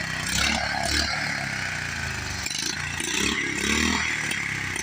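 1967 Jacobsen Chief garden tractor's engine running under load as it is driven, its speed rising and falling.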